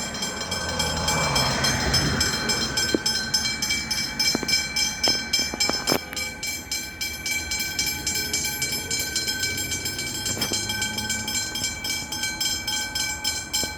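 Level crossing warning bells ringing in a steady pulse of about two strokes a second while the boom gates are down, with a few sharp clicks in between.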